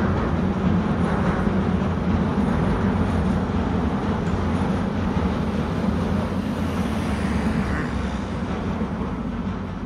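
Steady, loud rumble of a passing vehicle, easing slightly near the end.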